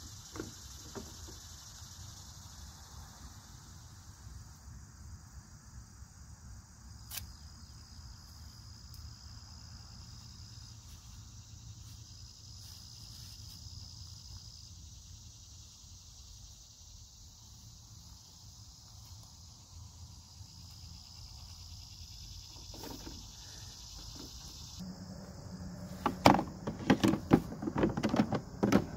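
Steady high-pitched chorus of insects with a single sharp click about seven seconds in. Near the end, a run of loud clicks and knocks as pruners are handled against plastic cleaning cups in a garden wagon.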